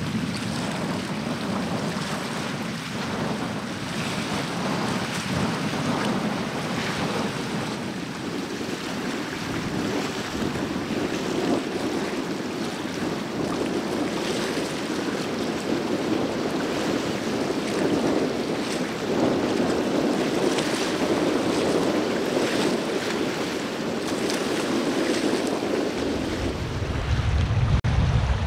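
Steady wind and sea noise over open water, with wind buffeting the microphone; the low buffeting grows heavier near the end.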